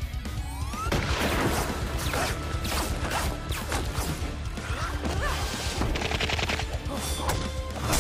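Fight scene soundtrack from an animated show: background music with a bass line under a string of hits, crashes and whooshes. About six seconds in comes a quick rattling burst like rapid gunfire.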